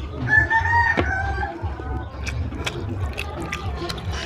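A rooster crows once, for about a second, near the start. Wet, sticky clicks and squelches of curried goat head and fat being pulled apart by hand run through it.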